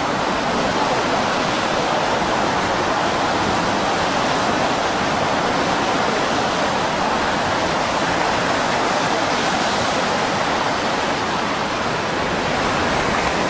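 Loud, steady rush of turbulent seawater surging and churning in a flooded harbour.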